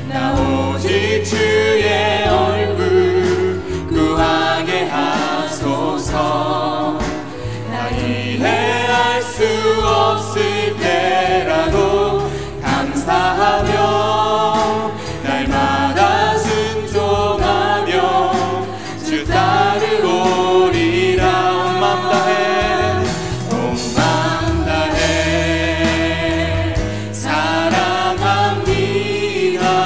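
A live worship band plays a praise song: several voices sing together in Korean over keyboard, acoustic guitar, bass guitar and drums.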